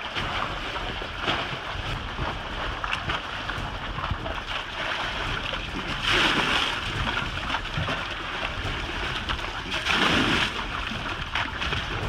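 Water splashing as a swamped fishing boat is bailed by hand with a bucket: two louder splashes, about halfway through and again near the end, over a steady rush of wind and choppy water.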